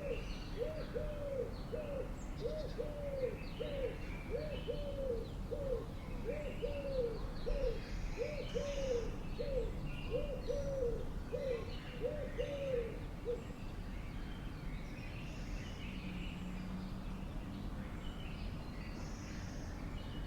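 A bird calling a long, even series of low hooting notes that stop about two-thirds of the way through, with smaller birds chirping higher up.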